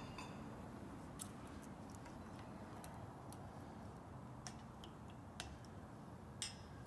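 Scattered light clicks and ticks, about seven in all and the last the loudest, as fingers work a round anchor light housing loose from a stainless wake-tower tube.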